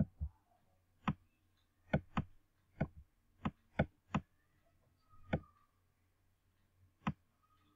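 Computer mouse button clicking about a dozen times at uneven intervals as letters are drawn stroke by stroke on screen.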